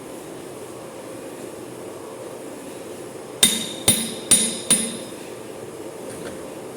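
Four quick hammer blows on metal, about half a second apart, each ringing briefly; they come a little past halfway through, over a steady background noise.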